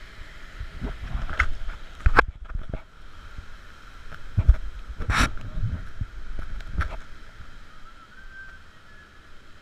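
Water splashing and gurgling close to the microphone over a steady rushing hiss, with irregular thumps and sharp knocks, the loudest about two and five seconds in.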